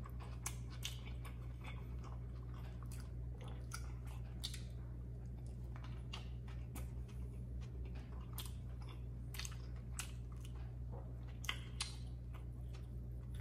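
Close-up chewing of a McDonald's Prosperity chicken burger with black pepper sauce and a soft bun: irregular wet mouth clicks and smacks, with another bite taken partway through, over a steady low hum.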